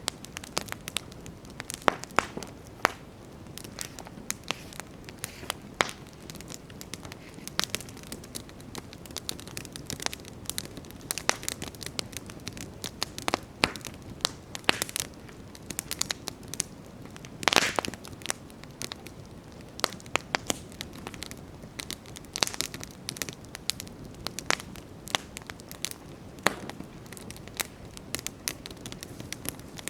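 Wood campfire burning: irregular sharp crackles and pops over a low steady hiss of the flames, with a louder burst of crackling just past halfway.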